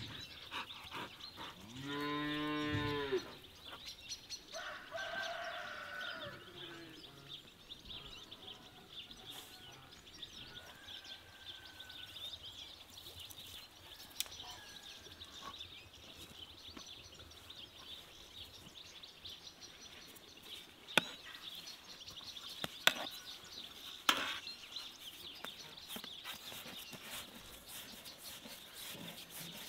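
A cow mooing once, a long low call about two seconds in, over faint bird chatter. Near the end come three sharp knocks.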